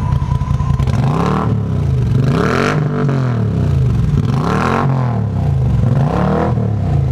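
Moto Guzzi MGX21's 1380 cc V-twin, its exhaust with the baffles removed, revved about four times and let fall back to idle between each.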